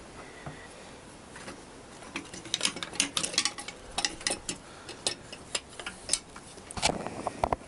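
Light metallic clicks and clinks, coming irregularly from about two seconds in, as small motorcycle parts and fasteners are handled and worked loose by hand. There are a few louder knocks near the end.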